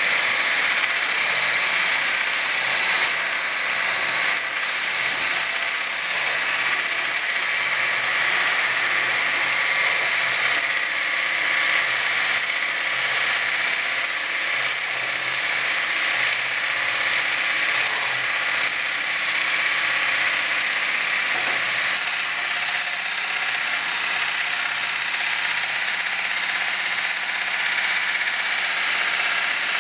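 Bosch ErgoMixx MSM66150 hand blender running with its whisk attachment in a beaker of milk: the motor gives a steady, high-pitched whir as the whisk froths the milk.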